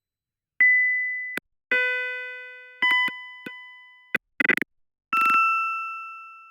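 Computer-synthesized tones from a Mandelbrot set sound program: a run of electronic beeps, each starting suddenly and fading until the next cuts in. First comes a single pure high tone, then two chords of several evenly spaced pitches, a short buzzy burst, and a last two-pitch tone fading out near the end.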